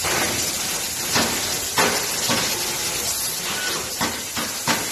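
Steady hiss of rail coach workshop noise, with a few short knocks and clatters scattered through it.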